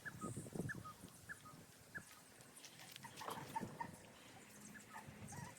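Small dog whimpering faintly: short high whines repeated about every two-thirds of a second in the first two seconds, then a few scattered ones, over soft low rustling.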